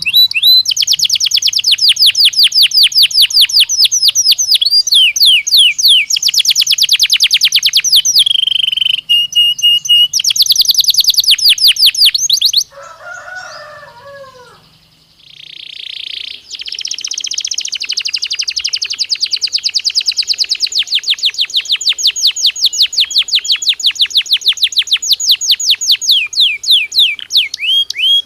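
Belgian canary singing: long runs of rapidly repeated trill notes, high-pitched and loud. About halfway through, the trilling breaks off for a few seconds, with a few quieter, lower sweeping notes, then resumes.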